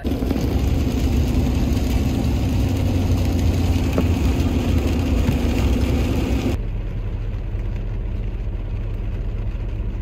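Vehicle driving on a wet road in heavy rain, heard from inside the cabin: a steady engine hum under a hiss of road and rain noise. About two-thirds of the way through the hiss drops away abruptly, leaving a lower, quieter rumble.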